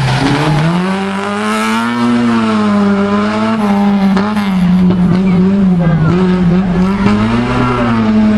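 Rally car engine revving hard and easing off again and again as it is driven round a tight course. Its pitch drops low just at the start, climbs back within about two seconds, then keeps rising and falling.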